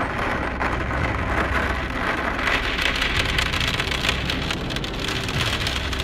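Heavy storm rain coming down, a steady dense hiss made of many fine taps.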